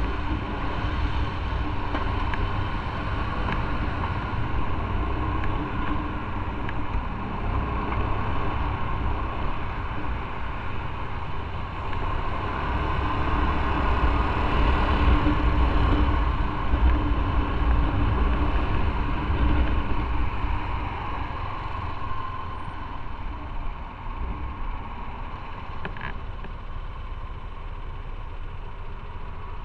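Motorcycle engine running steadily while riding on the road, with a low rumble. It grows louder for several seconds around the middle, then eases off.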